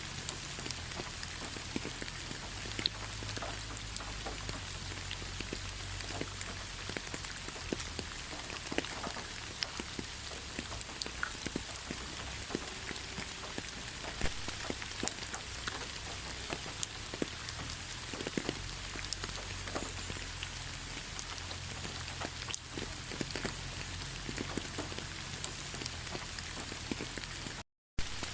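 Gentle rain falling steadily: an even hiss dotted with many separate drops tapping. The sound cuts out for a split second near the end.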